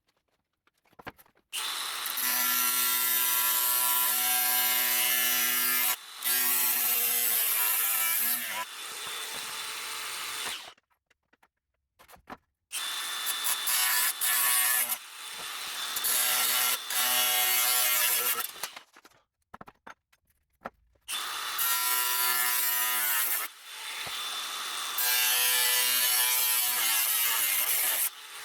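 Electric angle grinder cutting sheet steel in three long runs, its motor whine winding down after each cut.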